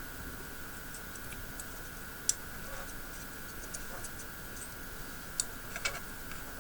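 Scattered, irregular light clicks and ticks of small tools and wires being handled at a soldering jig, over a steady faint high-pitched hum.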